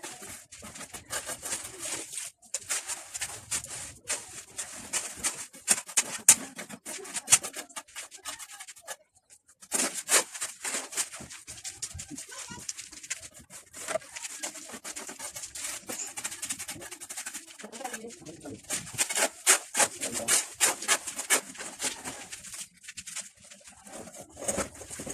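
Rapid, irregular scraping or rubbing strokes, hissy and bright, with a brief pause about nine seconds in.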